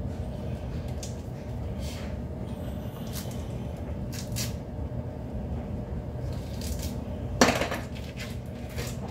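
Kitchen prep noises: light clicks and rustles of utensils and packaging being handled over a glass bowl, with one louder clatter about seven seconds in, over a steady low hum.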